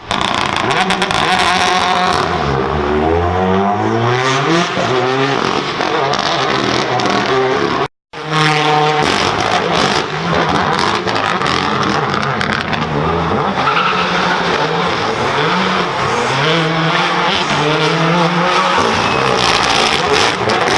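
Rally car engine revving hard and shifting through the gears, its pitch climbing and dropping again and again. The sound cuts out briefly about eight seconds in.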